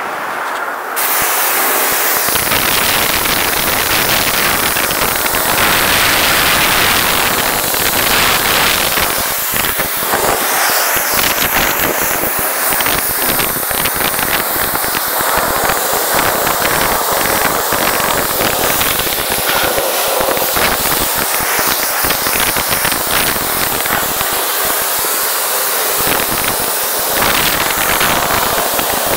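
Self-service car wash pressure-washer wand spraying a hissing high-pressure jet of water onto a car. The jet starts abruptly about a second in, and its hiss shifts as the spray moves over the body, wheel and floor.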